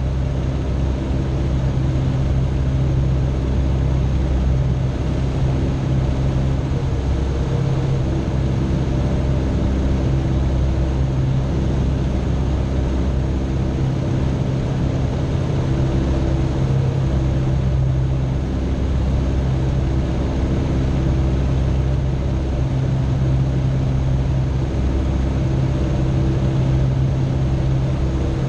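Citabria light aircraft's piston engine and propeller droning steadily in flight, heard from inside the cabin: one constant low engine note that holds without change.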